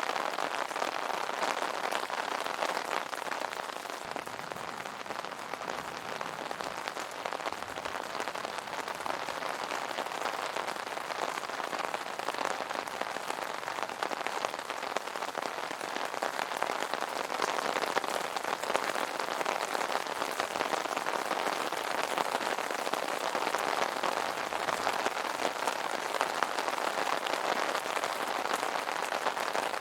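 Steady rain pattering on an umbrella: a dense, even patter of many small drops.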